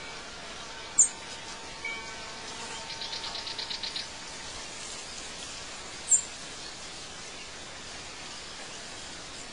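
Outdoor nature ambience with birds calling over a steady background hiss. A sharp, high chirp comes about a second in and again about six seconds in, and a fast trill of rapid repeated notes runs for about a second around the third second.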